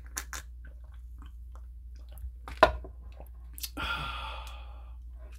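Someone drinking juice from a glass jar: small mouth and swallowing sounds, a sharp knock about halfway through, and a brief rasping sound about a second later.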